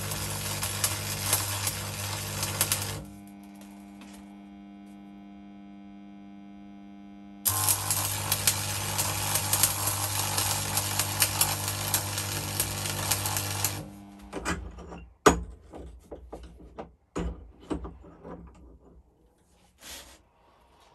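Arc welding on steel: a loud crackling, sizzling arc with a low buzz, in two runs of several seconds with a pause of steady hum between them. In the last several seconds, irregular sharp knocks and scrapes as the fresh weld is worked with a hand tool.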